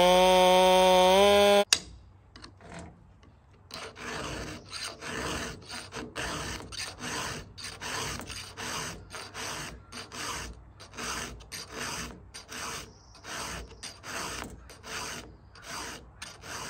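A chainsaw running with a steady pitched tone for about the first second and a half, then cut off abruptly. After a short pause, a round file rasps against the cutter teeth of a chainsaw chain in quick, even strokes, about two a second, as the chain is sharpened by hand.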